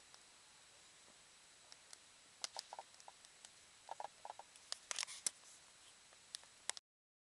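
Campfire crackling: irregular sharp snaps and small pops of burning wood over a faint hiss, thickest in the middle, cutting off abruptly near the end.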